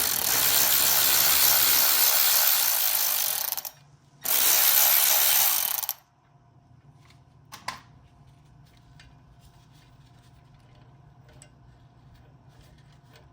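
Cordless electric ratchet with a hex socket running in two bursts, one of almost four seconds and then a shorter one, backing out a brake caliper's pad-retaining bolt. A single click follows, then faint small metal handling sounds.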